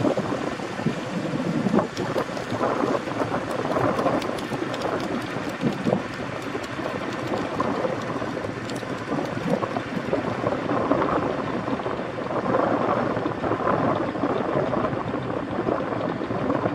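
McDonnell Douglas 369E (MD 500E) helicopter running on the ground, its Allison 250 turboshaft and rotors turning steadily with a loud, fluttering rush. Wind buffets the microphone.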